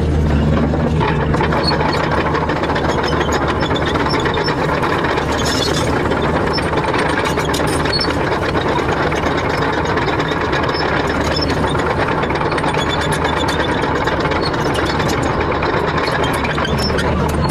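Excavator engine running steadily under load, with a dense, irregular run of metallic clicks and rattles from the machine working.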